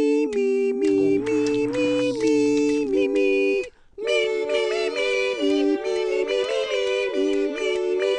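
Background music: a melody of held notes in a high, synthetic-sounding voice, stepping up and down in pitch. It breaks off briefly about three and a half seconds in.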